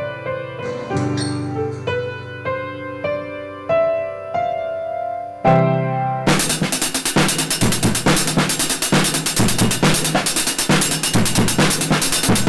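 Music: a melody of held notes, then about six seconds in a loud, fast drum beat comes in and keeps going.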